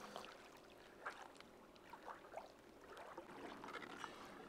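Near silence: a faint background hiss with a few soft, scattered ticks and taps.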